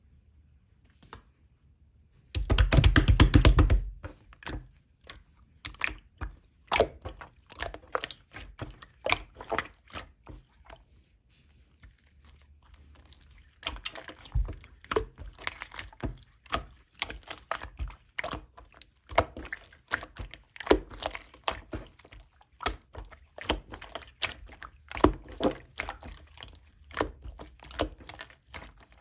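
Slime being played with by hand: a dense burst of crackling about two and a half seconds in, then a long run of sticky clicks and pops as it is pressed and stretched, with a short pause near the middle.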